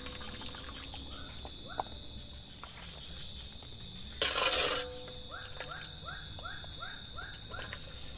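Frog calling at night: a run of about eight short, rising croaks, roughly three a second, over a steady high-pitched insect drone. A brief hiss lasting about half a second comes just before the run of calls.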